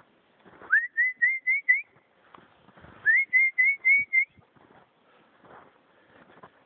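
A person whistling two quick runs of five or six short rising notes, with a pause of about a second between the runs. Faint crunching of footsteps in snow in the gaps.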